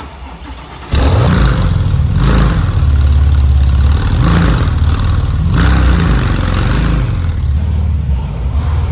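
Porsche 997 Turbo Mk1's twin-turbo flat-six starting through a newly fitted Capristo exhaust. It catches about a second in, then runs loud with several short surges.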